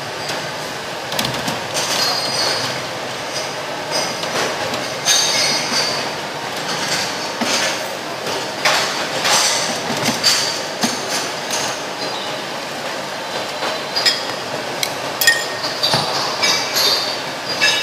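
Metal utensils clinking and scraping against a large stainless steel broth pot, with ceramic bowls clinking, in many short sharp strikes over a steady background din.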